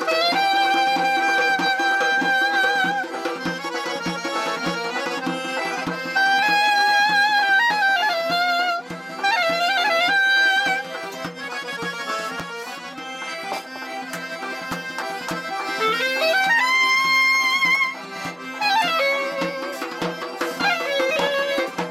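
Live folk trio of clarinet, accordion and hand-struck frame drum: the clarinet carries the melody in long held notes and sliding bends, over sustained accordion chords and a steady drum beat.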